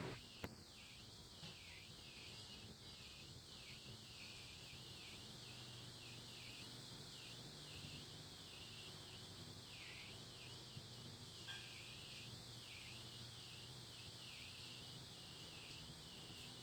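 Faint, steady hiss of rain, with a couple of tiny ticks.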